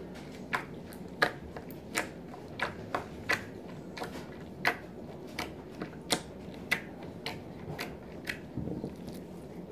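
Pink slime being poked and pressed flat against a tabletop with the fingertips, giving off a string of sharp clicks and pops, about one and a half to two a second at an uneven pace.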